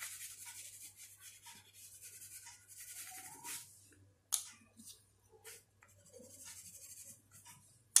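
Faint scratchy rubbing of a brown crayon colouring on paper for about three and a half seconds, then a single sharp click a little after four seconds in.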